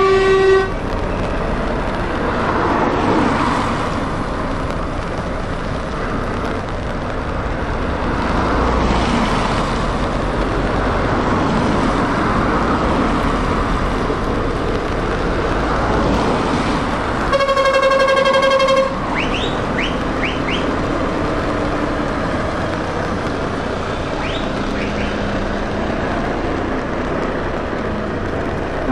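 Convoy of heavy lorries and cars passing slowly on a wet road: a steady wash of diesel engines and tyre hiss. A lorry's air horn sounds briefly at the start, and a longer, louder horn blast of about a second and a half comes a little past the middle.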